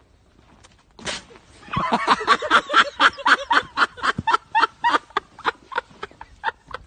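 A woman laughing hard in quick repeated bursts, about three a second, starting after a short sudden sound about a second in.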